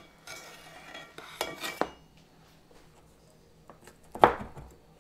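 Spatula scraping under a pizza as it slides off a cast iron skillet onto a wooden board, ending in a sharp clink about two seconds in. A little after four seconds, a long knife presses down through the crust and hits the board with one loud sharp knock.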